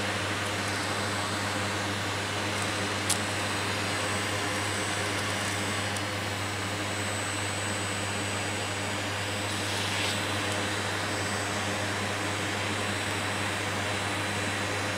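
Vacuum cleaner running steadily with a constant whooshing hum, and one brief sharp click about three seconds in.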